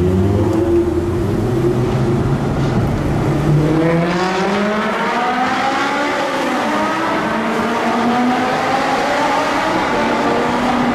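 Sports car engine accelerating hard in a road tunnel. Its note climbs in pitch over the first several seconds, then holds steadier toward the end.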